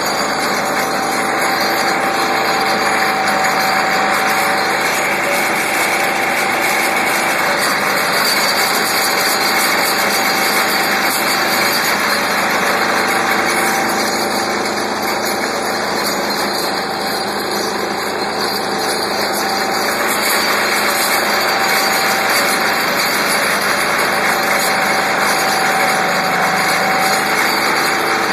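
Vibratory pile driver (vibro hammer) clamped on a steel sheet pile, running with a loud, steady machine drone and a faint steady hum, easing off slightly in the middle.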